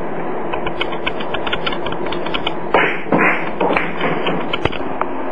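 Pool cue striking the cue ball a little under three seconds in, followed by a quick run of sharp clacks as the billiard balls hit one another and knock into the pockets, over a steady background hiss.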